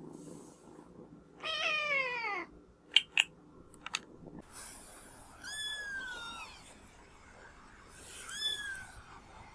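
Kittens meowing: one loud meow falling in pitch, a few sharp clicks, then a higher-pitched kitten's mews, twice, each rising then falling.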